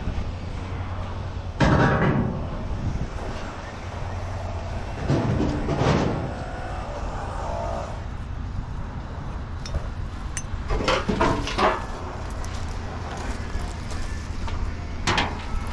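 Scrap metal being handled, in four short clattering bursts over a steady low rumble.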